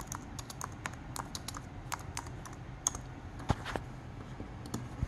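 Typing on a computer keyboard: irregular keystroke clicks, with a couple of heavier knocks about three and a half seconds in.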